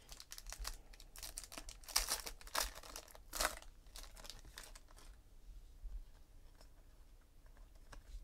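Foil trading-card pack being torn open, the wrapper crinkling and tearing in a run of crackles for about three and a half seconds. Sparse faint clicks follow as the cards are handled.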